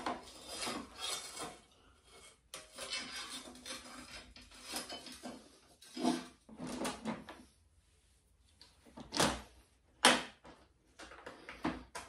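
Metal motorcycle luggage rack being slid into place against a plastic rear fender: rubbing and scraping in patches, with a couple of sharper knocks about nine and ten seconds in.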